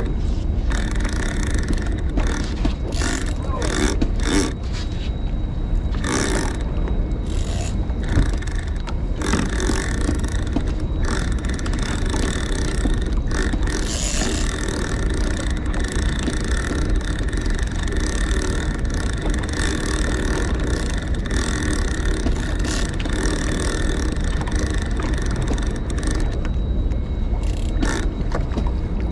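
A steady low rumble of wind and boat noise at sea, with scrapes and knocks from line and gear being handled on the boat, mostly in the first ten seconds.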